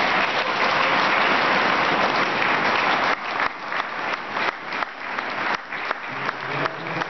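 Spectators applauding a tennis point, dense and steady at first, thinning to scattered claps after about three seconds.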